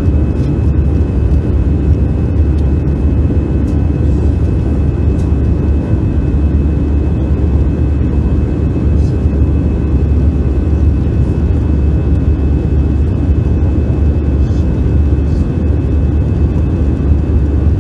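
Steady jet airliner cabin noise in flight: a loud, even low rumble from the wing-mounted turbofan engine and airflow, with a thin steady whine above it.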